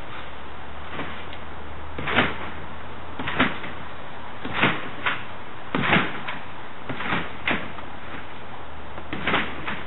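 Someone bouncing on a backyard trampoline in the rain: the mat gives a short thump at each landing, about nine times at uneven intervals, over a steady hiss of falling rain.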